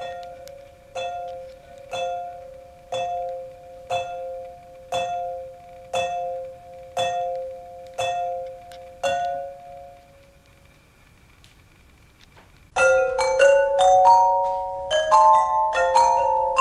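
Tuned pipes struck with mallets: a two-note ringing strike repeated about once a second, dying away about ten seconds in. After a short lull, three sets of pipes come in together with fast, dense strikes at many pitches.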